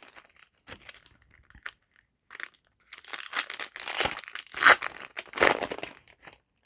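Foil booster pack wrapper crinkling and tearing as it is ripped open, in scattered crackles at first, then a denser, louder stretch that stops shortly before the end.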